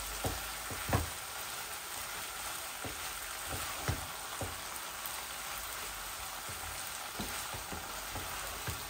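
Chicken, vegetables and noodles sizzling steadily in a nonstick frying pan as they are stir-fried with a wooden spatula, with scattered light knocks of the spatula against the pan.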